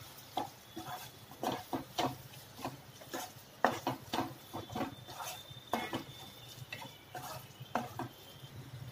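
A spatula scraping and knocking against a non-stick kadai as a thick onion-tomato masala is stirred, in short, irregular strokes one or two a second.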